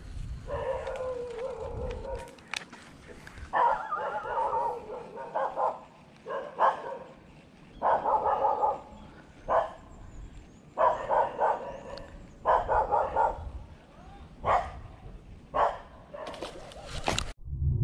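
Repeated short animal calls, one every second or two, each lasting under a second to about a second and a half, with a few sharp clicks in between.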